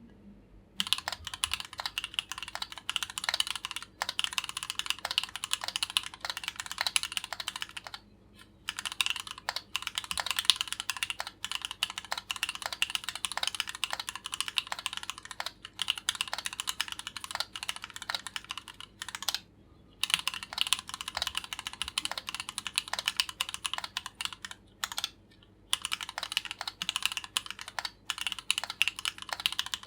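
Keychron Q8 mechanical keyboard with Gateron Oil King switches being typed on quickly and continuously, a dense run of keystroke clacks broken by a few short pauses.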